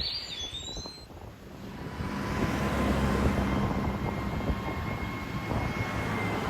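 A passing engine's low rumble that builds about two seconds in, carrying a steady hum and a faint high whine, over the wash of surf.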